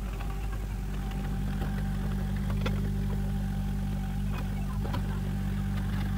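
Mini excavator's diesel engine running steadily, with a few light clicks a few seconds in.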